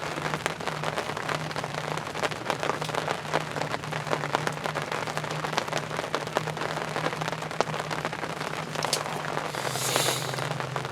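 Steady rain, heard as a dense, irregular patter of raindrop taps close by, over a steady low hum. About ten seconds in there is a brief hiss.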